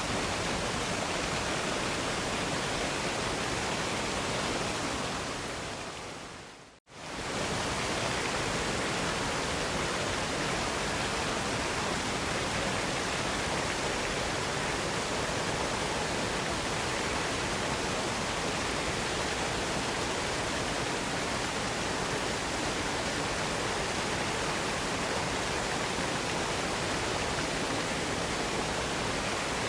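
Steady rushing of a waterfall, an even roar of falling water. About five seconds in it fades out to a moment of silence and swells straight back up, where the recording loops.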